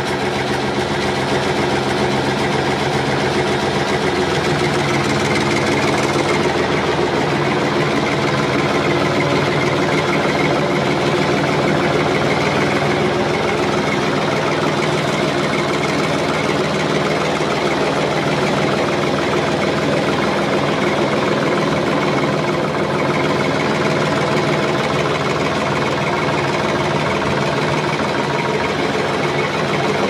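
An engine running steadily at an even speed.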